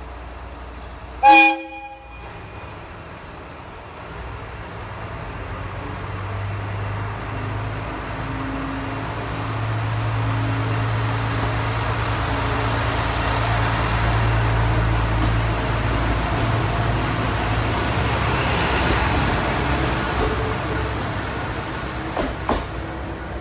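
Tsugaru 21 diesel railcar giving one short horn blast as it departs, then its diesel engine revving up as it pulls away and passes close by, the engine drone swelling and then fading. A couple of sharp clicks near the end.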